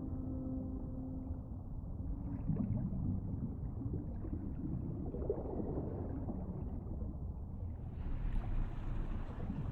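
Muffled, low underwater-style ambience: a steady deep rumble with little treble, with a faint low hum in the first second or so and a brighter hiss joining about eight seconds in.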